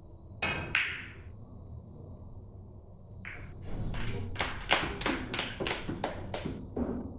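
Carom billiard balls clicking together twice, then a short run of hand clapping, about a dozen even claps at roughly three a second.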